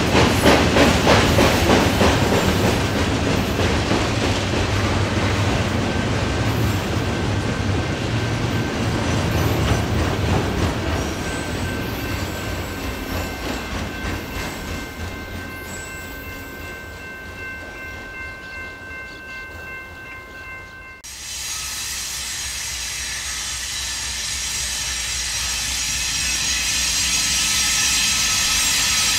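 Freight cars rolling past with their wheels clacking over the rail joints. The sound fades as the end of the train goes by, leaving faint steady high-pitched tones. After a sudden cut about 21 seconds in, a Norfolk Southern rebuilt GE AC44C6M diesel locomotive approaches, its running sound growing louder.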